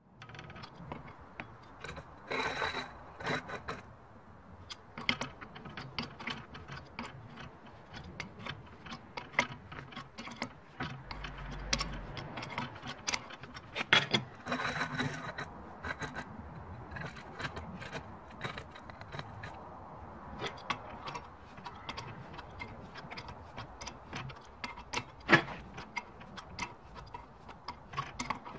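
Steel bearing puller being handled and fitted over a shaft: irregular metallic clinks, clicks and short scrapes as its legs, washer and bolt knock against the shaft and the ball bearing. The loudest clinks come about halfway through and again near the end.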